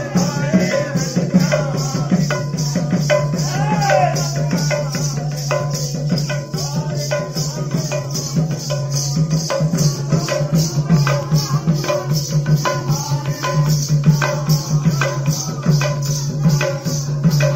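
Sambalpuri kirtan party music: a hand drum and a fast, even jingling percussion beat over a low steady drone, with voices singing and calling over it.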